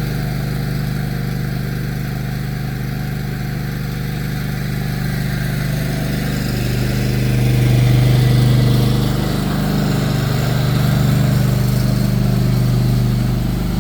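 Cub Cadet XT-1 LT-50 lawn tractor engine running steadily as the tractor drives by, swelling louder around the middle and again toward the end.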